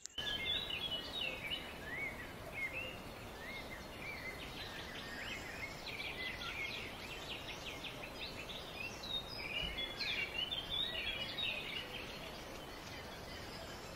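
Several small birds chirping and twittering, with quick runs of trilled notes, over steady faint background noise.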